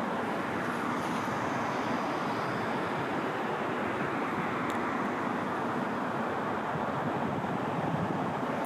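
Steady rushing noise of flowing river water, with a faint tick about halfway through.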